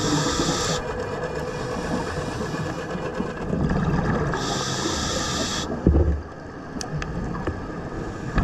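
Scuba diver breathing through a regulator underwater: two hissing inhalations about a second long, with a low bubbling rumble of exhaled bubbles between them. A dull knock about six seconds in.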